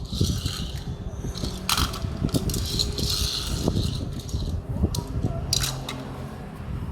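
Rattling, scraping and sharp clicks of a small die-cast toy car and its packaging being handled, with a couple of distinct clicks and a steady patter of low knocks.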